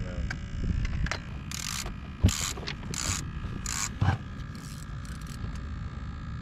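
Sea-fishing reel's ratchet clicking in about six short bursts as a fish pulls on the line, with a couple of dull knocks.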